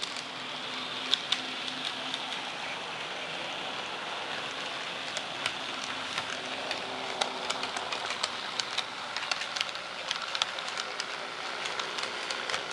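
HO scale model of a General Electric U10B diesel locomotive running along the track with its train. It makes a steady running hiss, with frequent irregular clicks of the wheels on the rails.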